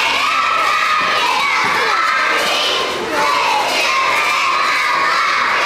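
Many children's voices shouting and cheering at once, a crowd of high voices with a short dip about three seconds in.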